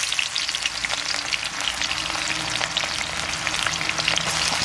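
Sliced onions frying in hot white cooking oil in a kadai, sizzling as beresta (crisp fried onions for biryani): a steady hiss full of rapid small pops.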